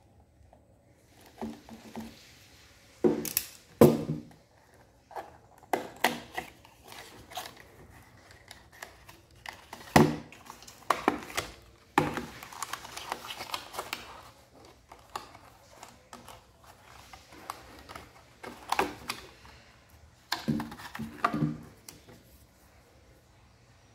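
Cardboard box and plastic packaging being handled on a tabletop: scattered knocks and taps of the box and tray against the table, with stretches of paper and plastic rustling and sliding.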